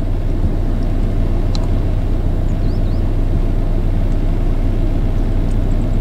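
Steady low rumble of road traffic, with a couple of faint high chirps about halfway through.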